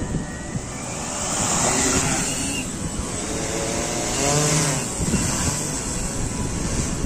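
Sharkan bait-fishing drone lifting off, its propellers whirring. The whirr grows louder about a second in and wavers in pitch as the drone climbs.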